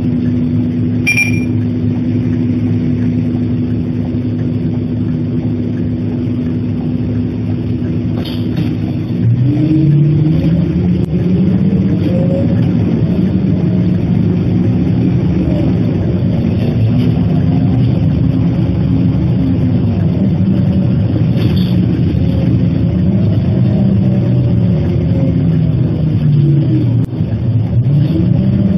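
City bus diesel engine heard from on board: a steady idling hum, then about nine seconds in the bus pulls away and the engine note rises and drops back several times as the automatic gearbox changes up.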